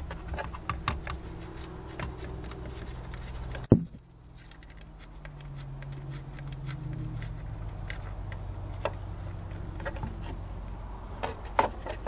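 Light clicks and rattles of a hard plastic boat ignition switch housing being turned and handled by hand, with one sharp knock a little under four seconds in.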